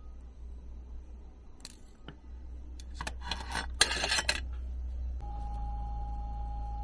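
Metal tools clicking and clattering against a stainless steel tray as long steel tweezers are set down in it, a quick run of sharp rattles about three to four seconds in. About five seconds in, a steady humming tone starts and holds, as if a small machine has been switched on.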